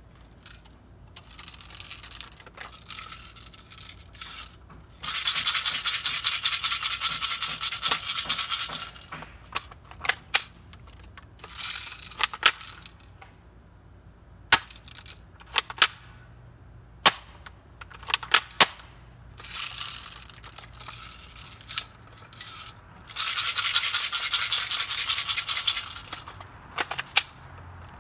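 Airsoft gun firing: two long rapid-fire bursts of about four seconds each, with a string of single sharp shots or pellet hits in between.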